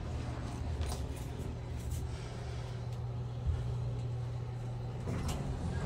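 Elevator car in motion: a steady low hum with a few faint clicks.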